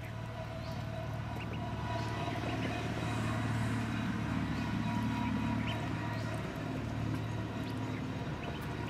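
Ducklings peeping now and then, short high calls about once a second, over a steady low engine hum that grows louder in the middle and eases off toward the end.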